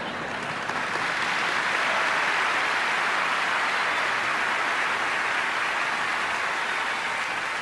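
A large theatre audience applauding. The clapping builds over the first couple of seconds and then eases off a little.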